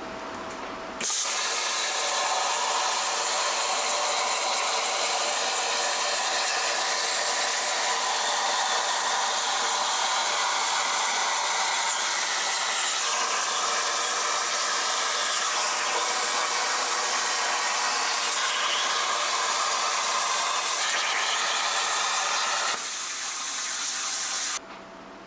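CUT50L plasma cutter's torch cutting 1/8-inch mild steel: the arc fires with a low-frequency blowback start about a second in, then a steady, loud hiss of arc and compressed air. Near the end the hiss drops to a lower level, then cuts off.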